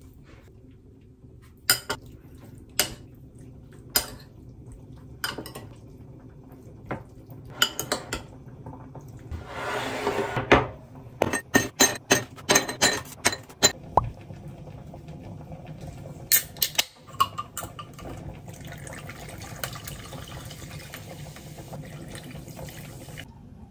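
A metal spoon clinks against a ceramic bowl several times while mixing diced raw beef. About ten seconds in, a plastic ice tray is twisted with a crackle and ice cubes clatter into a glass in a quick run of clinks; then a drink is poured from a can over the ice with a steady hiss.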